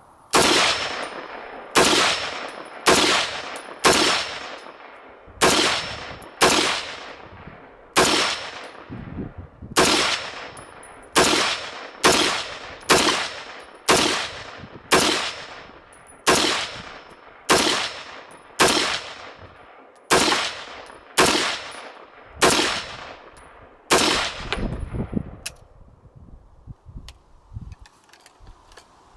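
Semi-automatic fire from a 7.62×51mm L1A1 (FN FAL-pattern) rifle: about two dozen sharp shots at a steady pace of roughly one a second, each trailing off in echo. After the last shot, near the end, there is quieter rattling of the rifle being handled.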